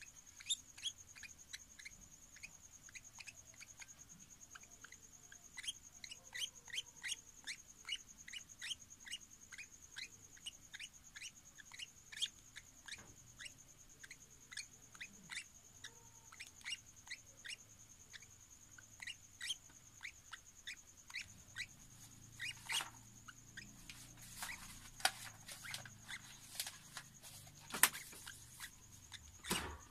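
Hand-fed young lovebird giving quick, short, high feeding chirps, about two or three a second, as it eats porridge from a spoon. Faint throughout, over a steady high whine.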